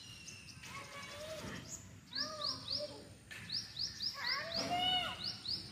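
Birds chirping in quick runs of three or four short, high, falling notes, repeated several times, alongside small children's wordless, sing-song calls, which swell near the end.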